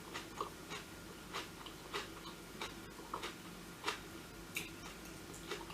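Person eating and chewing food, with soft irregular wet mouth clicks about every half second.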